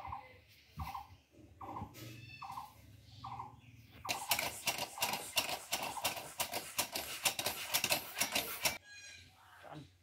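A hen clucking in short calls repeated about every 0.7 s. About four seconds in, a dense, rapid rasping and scraping noise takes over for about five seconds and is the loudest sound, then cuts off suddenly.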